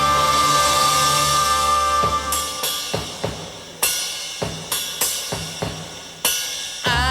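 Live band music in a Japanese-style arrangement with traditional instruments. A held chord gives way after about two seconds to a run of separate cymbal and drum strikes, each left ringing, and the melody comes back in near the end.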